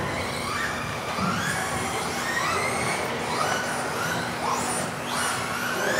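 Electric 1/10 off-road RC buggies racing, several motors whining at once. Their pitch rises and falls over and over as they accelerate and brake around the track.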